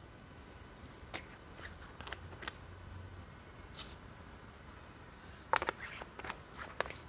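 Light clicks and taps of a hand grinder's catch cup against a V60 dripper as ground coffee is emptied into the filter, a few at first and then a louder cluster of clicks near the end.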